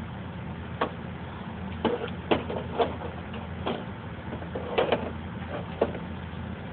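About eight sharp knocks or pops at uneven intervals over a steady low rumble.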